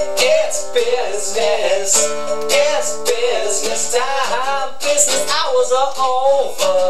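Music: a strummed guitar with a wordless melody line wavering in pitch above it.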